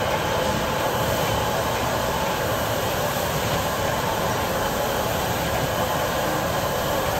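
Restaurant gas wok burner running full, a steady roar, with pork and peppers sizzling in the wok as a ladle stirs and tosses them.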